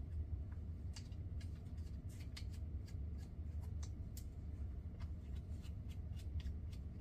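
Small irregular clicks and ticks of a Quantum EX 501 baitcasting reel being handled as its thumb screws are spun down, over a steady low hum.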